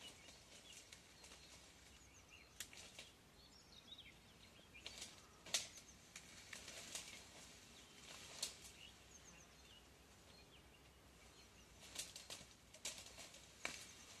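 Irregular sharp snaps and cracks from the reedbed, the unexplained noises that made the angler stop. Faint small-bird chirps sound between them.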